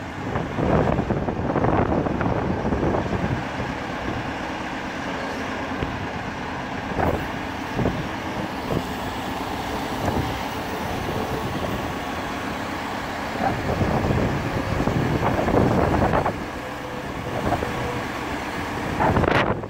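Cat TH63 telehandler's diesel engine running, with the boom being worked on hydraulics; the sound rises in several brief surges.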